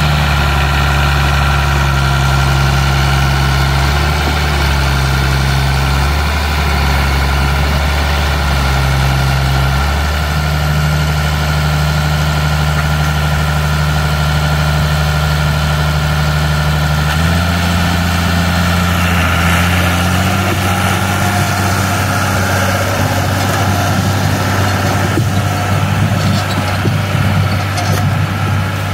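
John Deere 3350 tractor's diesel engine running steadily close by; about two-thirds of the way through its speed steps up and holds higher as the tractor works a disc harrow.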